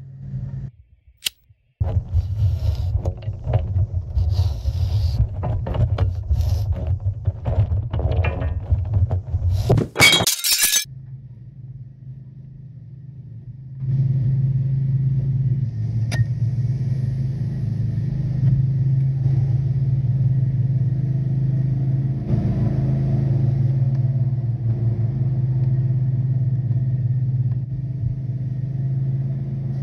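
A steady, low engine-like hum runs throughout. Over it, for the first ten seconds or so, come irregular clattering and clinking of metal being handled, ending in one loud crash-like burst about ten seconds in.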